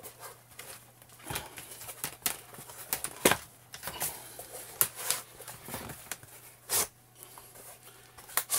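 Irregular clicks and scraping as a rubber foot pocket is worked off the blade of a long freediving fin.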